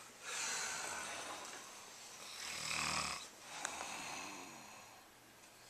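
A man snoring in his sleep: slow, breathy breaths with one louder, lower snore about three seconds in.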